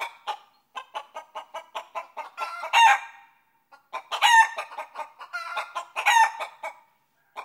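Chicken clucking in quick runs of about six clucks a second, each run building to a louder call, three times over.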